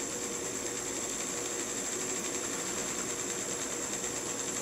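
A small fischertechnik electric motor running steadily through its gears: an even mechanical whir with a thin, steady high whine.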